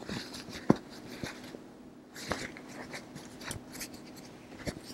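Canvas fabric rustling and rubbing as a small sewn pocket is turned right side out and its corners pushed out by hand, with a few light clicks about once a second.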